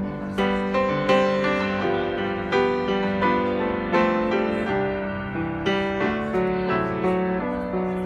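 Grand piano played solo: a slow run of chords and melody notes, each struck and left to ring out, with no singing.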